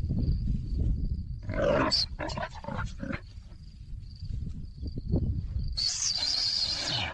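Wild animals growling low in a tense standoff, with harsh snarls about two seconds in and a long hiss near the end, a threat display. A thin steady high tone runs underneath.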